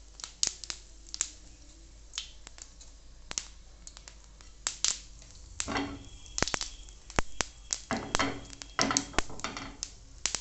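Cumin seeds being tempered in hot oil, popping and crackling in scattered sharp pops that come thicker in the second half.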